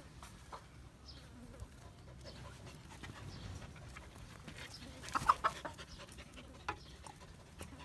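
A short animal call, a few quick pitched notes about five seconds in, over a faint steady background with scattered clicks.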